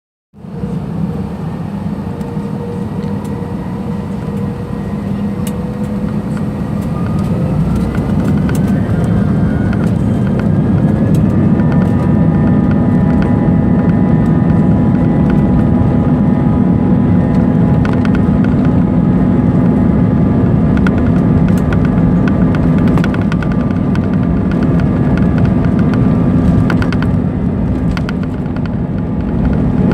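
Airbus A320's jet engines heard from inside the cabin, with a steady rumble. Between about 6 and 12 seconds in, a whine rises in pitch and the sound gets louder as the engines spool up toward takeoff thrust. The whine then holds steady over the loud rumble of the takeoff roll.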